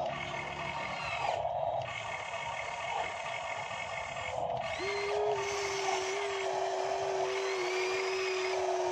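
Motors of a radio-controlled model excavator whining as it works. About five seconds in, a steady whine sets in as the boom lifts a full bucket of mud out of the water.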